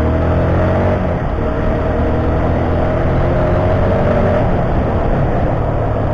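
Motorcycle engine rising in pitch as it speeds up, then holding a steady note, over a heavy low wind rumble on an action camera's external mic. The engine note fades into the rumble past the middle.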